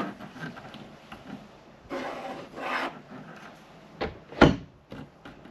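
Wooden storage cabinet being handled: two rubbing, rasping slides, then two sharp knocks about four seconds in, the second louder.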